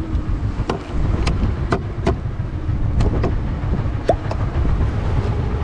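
Boat engine running with a steady low rumble, with scattered sharp clicks and knocks on deck and a short rising squeak about four seconds in.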